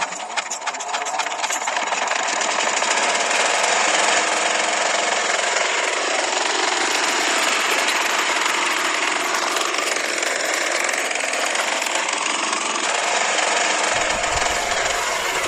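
Small motor of a toy model diesel-engine water pump running steadily with a fast, rattling buzz, building up over the first couple of seconds. A low rumble joins near the end.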